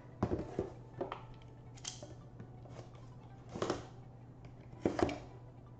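A cardboard trading-card booster box being handled and its plastic shrink-wrap cut open: about six short scrapes and crinkles spread out over a few seconds.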